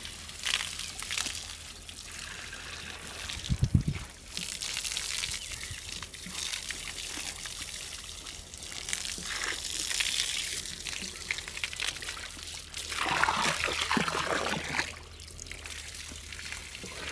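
Water from a hose spraying onto a buffalo's wet hide and splashing and trickling onto the brick floor, a steady hiss with a louder spell of splashing near the end. A brief low thump about four seconds in.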